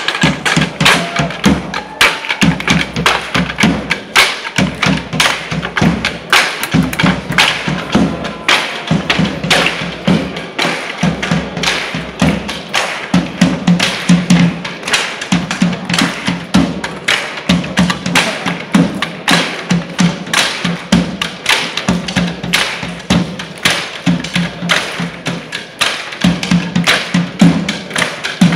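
Drumline rhythm beaten with drumsticks on wooden chairs: fast, sharp wooden clacks in a driving pattern, together with a drum giving a lower beat.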